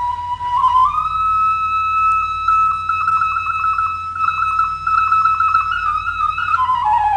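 Bulgarian kaval (end-blown wooden shepherd's flute) playing a slow shepherd's melody: one high note is held long, twice ornamented with rapid trill-like flutters, and the line steps down near the end.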